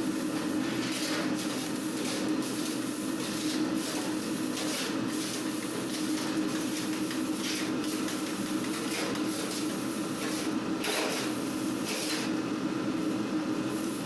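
Steady machine hum in a bakery, with irregular scrapes and light knocks from a metal dough scraper cutting dough on a steel bench and dough being handled.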